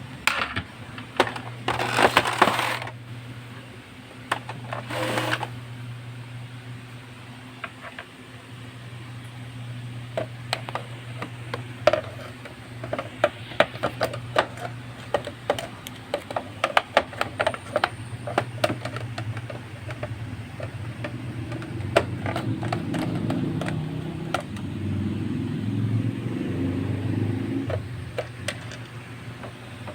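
Clicks, taps and small metallic rattles of screws and plastic parts being handled as an Epson L360 printer is taken apart, over a steady low hum.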